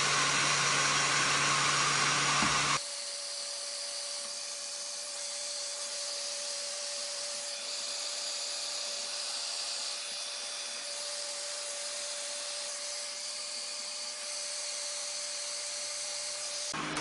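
Heat gun blowing hot air onto PVC pipe: a steady hiss with a low hum. About three seconds in, the sound drops abruptly to a quieter, thinner hiss with a steady higher whine, the heat gun's sound in sped-up footage.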